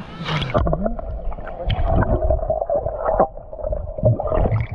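Muffled gurgling and sloshing of sea water with a steady hum and low thumps, as heard with the microphone dipped under the water.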